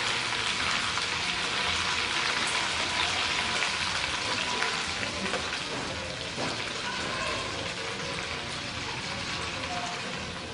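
Food deep-frying in a small pan of hot oil: a steady crackling sizzle with many small pops, easing off a little in the second half.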